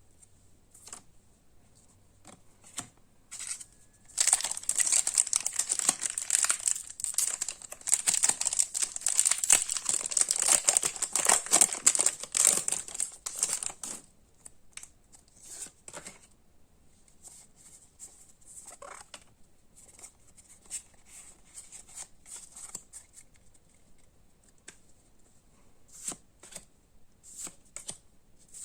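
Pokémon card packaging torn open and crinkled for about ten seconds, then scattered light clicks and rustles of cards being handled.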